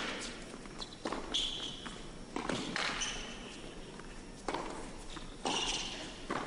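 Tennis rally: racket strikes on the ball about every second, with brief high squeaks of tennis shoes on the court between shots.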